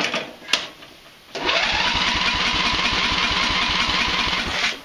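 Riding lawn tractor's electric starter cranking the engine for about three seconds, a fast steady chugging with a starter whine that cuts off abruptly, after a click or two from the key switch. The engine turns over on the freshly tightened battery connections but does not catch, with its fuel line clamped off for carburetor work.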